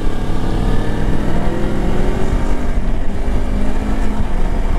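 Kawasaki Versys-X 300's parallel-twin engine running at road speed under steady wind rush on the microphone. The engine note shifts slightly around the middle.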